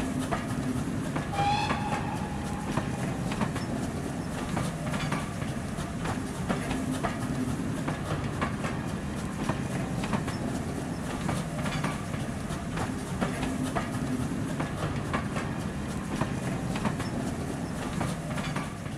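Railway train running, its wheels clicking over the rail joints over a steady low rumble, with a short whistle about a second and a half in.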